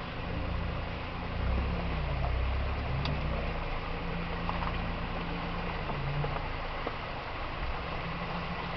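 Off-road vehicle's engine running under load during a winched descent, its note dipping and rising again in the first few seconds and then holding steady, with a louder low rumble early on and a steady hiss behind it.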